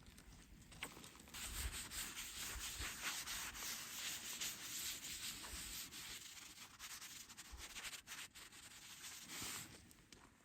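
Rust being rubbed off the steel cooktop of a rusty Blackstone griddle: a gritty scraping made of many quick strokes. It starts about a second in and stops shortly before the end.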